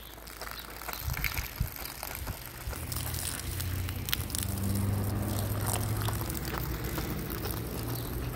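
Hand-washing a garment with detergent powder on rough pavement: scratchy rubbing and scrubbing of wet fabric against the ground. A low hum sets in about two and a half seconds in and grows louder.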